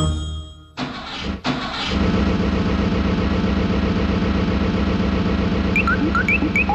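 An engine sound for a toy car: a couple of sputters about a second in as it starts, then a steady running engine with an even throb. Short rising squeaks begin near the end.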